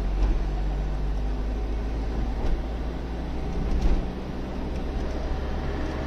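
Steady engine and road rumble inside a Citroën XM cruising at motorway speed, with tyre hiss from the wet road. A couple of brief bumps come about two and a half and four seconds in.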